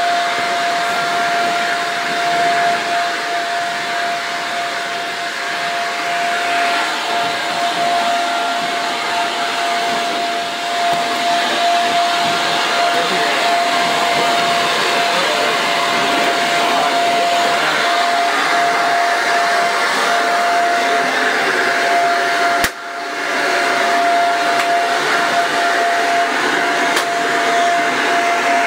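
Electric leaf blower running steadily at full speed: a high steady whine over a loud rush of air, dropping out for an instant about three-quarters of the way through.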